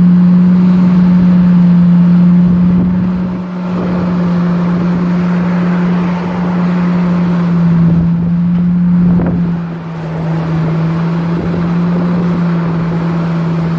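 Komatsu hydraulic excavator's diesel engine running with a steady hum while the machine digs, its pitch sagging briefly under load. A car passes close by partway through.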